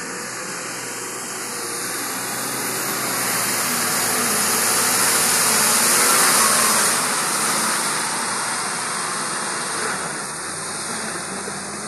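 A heavily loaded goods truck's diesel engine runs as the truck drives through deep mud. It grows louder as the truck passes close, peaking about six seconds in, then eases off as it moves away.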